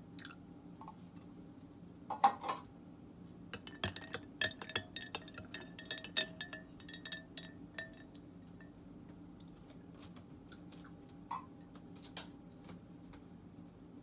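Light clinks and taps of tableware, with short ringing tones, in a loose cluster in the middle and a few single ones later, over a steady low room hum.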